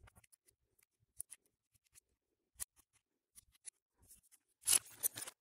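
Small clicks and taps of an angle grinder's metal gear head being handled and taken apart by hand, with a louder scraping rattle lasting under a second near the end.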